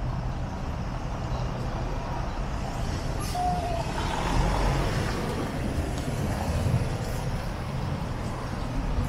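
City street traffic: a steady rumble of passing cars and trucks, engines and tyres, swelling a little midway. A brief high tone sounds about three and a half seconds in.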